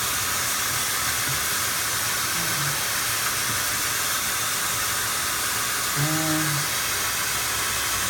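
Vacuum running steadily with an even rushing hiss, pushing air through the exhaust system so that leaks show up.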